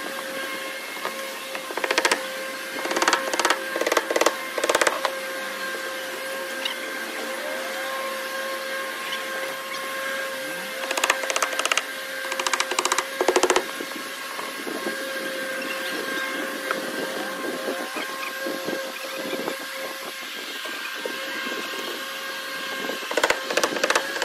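Roofing work: short bursts of rapid knocks, several clusters over the stretch, over a steady mechanical hum.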